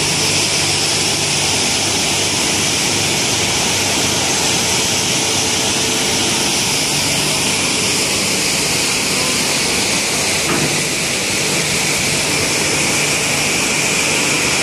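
Granite slab processing machinery running steadily: a loud, even hiss over a low hum, with no break.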